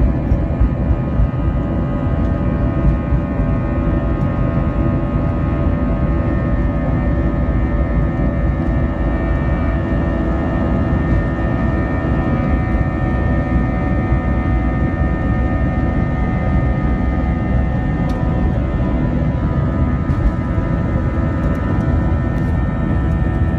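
Jet airliner heard from inside the cabin during the takeoff roll: engines at takeoff power with steady whining tones over a heavy, continuous rumble.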